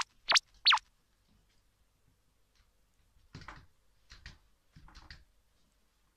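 Three quick, high-pitched squeaks in the first second, each falling in pitch. A little past halfway come three soft bumps and rustles as a cat's paws step from a rope cat bridge onto a clear acrylic wall bowl bed.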